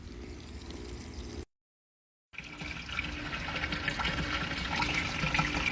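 Water running and hissing out of a backflow preventer while it is bled during a backflow test. It runs for about a second and a half, cuts off, then comes back near the middle and grows gradually louder.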